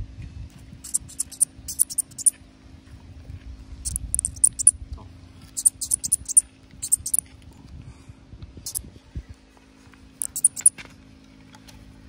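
Pseudophyllus leaf katydid stridulating: about six short bursts of rapid, very high chirps, each a quick run of clicks, spaced irregularly a second or two apart. The call sounds bird-like.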